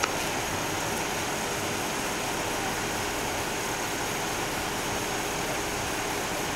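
Steady rushing background noise with a faint constant high-pitched tone running through it, and one short sharp click right at the start.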